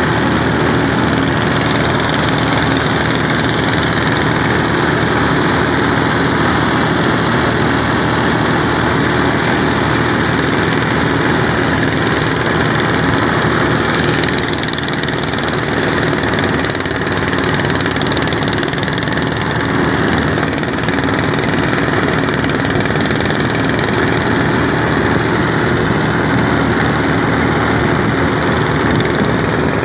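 Small stationary engine running steadily and loudly, without a break.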